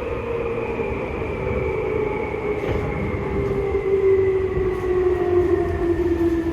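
Seibu 2000 series electric train's traction motors whining over the low rumble of the running train, the whine falling steadily in pitch as the train slows.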